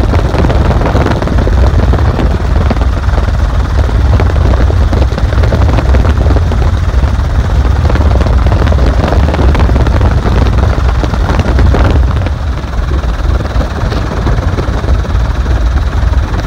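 Helicopter rotor and turbine noise heard inside the cabin: a loud, steady drone with a heavy low rumble, easing slightly about twelve seconds in.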